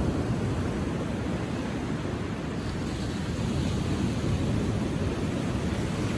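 Ocean surf rolling in and breaking on a beach: a steady rushing wash, swelling a little about halfway through.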